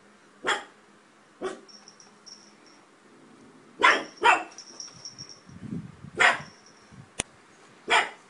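Pug barking: six short, sharp barks at uneven gaps, two of them close together about four seconds in. A faint high thin tone sounds between some barks, and there is a single sharp click shortly before the last bark.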